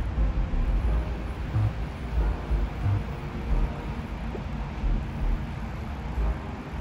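Wind buffeting the microphone in uneven gusts of low rumble, over a steady outdoor hiss.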